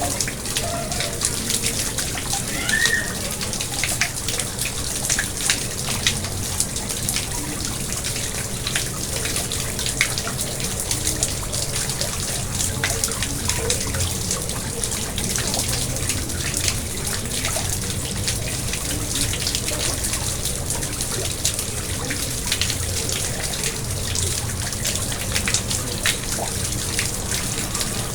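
Garden pond water splashing and trickling steadily, a continuous patter of small splashes.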